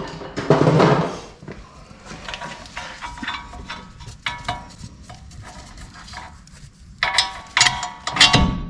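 Hand tools and steel brake parts clinking and clanking during work on a truck's front brake caliper: a series of small metallic clicks, with louder, ringing metal clanks near the end.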